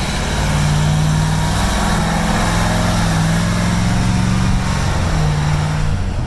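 Turbocharged Cummins V903 V8 diesel of a Scammell Nubian Mk10E crash tender pulling away and driving off. The engine note is loud and steady, rising and falling a little in pitch as it drives.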